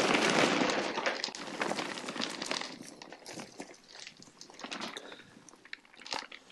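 Shredded rubber mulch, with spent lead airgun pellets mixed in, pouring out of a tipped plastic box into a plastic case. It starts as a dense rush of rattling and after about a second thins out into scattered clicks and ticks.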